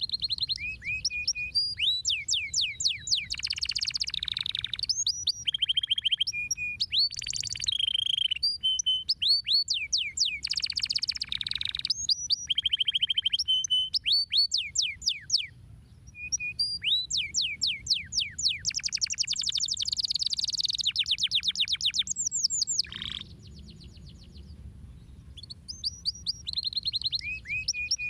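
Domestic canary singing a long song of fast repeated trills and rolls. It breaks off briefly about 15 seconds in and again for a few seconds near 23 seconds before resuming.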